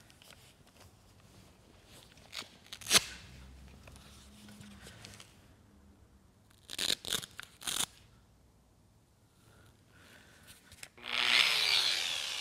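Polishing pad pulled off a polisher's hook-and-loop backing plate with a few short ripping sounds, after a single sharp click. Near the end the polisher is run briefly, its whine falling in pitch as it spins down.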